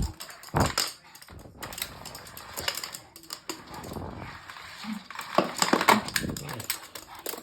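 Scattered light clicks and scuffles from toy poodles playing, with a short low grumble from a dog about five seconds in.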